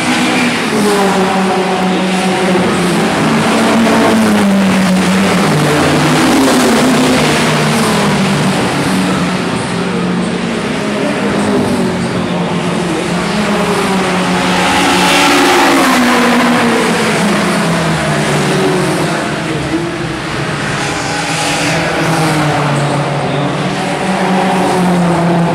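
A pack of classic saloon racing cars accelerating past on a wet track: several engines revving and shifting gears, rising and falling in pitch over the hiss of tyres throwing spray. The loudest pass comes a little past halfway through.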